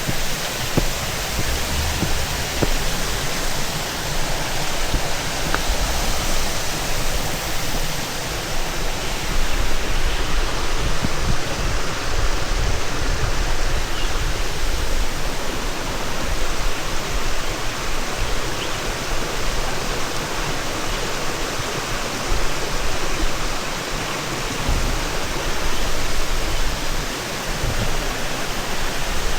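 Steady rushing of water: an even hiss with a low rumble underneath.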